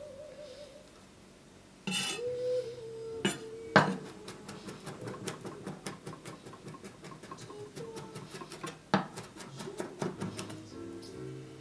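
Chef's knife mincing garlic on a wooden cutting board: a fast run of taps as the blade strikes the wood, with a few louder knocks among them, starting after a quieter first couple of seconds.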